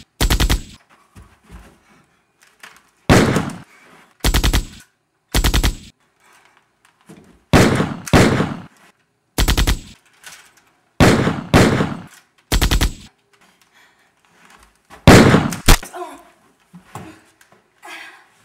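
Gun sound effects: short, loud bursts of automatic fire, about a dozen in all and each roughly half a second long, with pauses between them. A few fainter, shorter sounds follow near the end.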